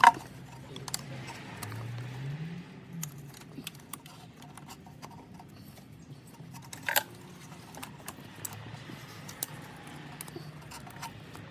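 Scattered light clicks and clinks of ignition coils and their plastic connector clips being pressed into place on a BMW N55 engine, with two sharper clicks, one at the start and one about seven seconds in. A faint low hum runs underneath.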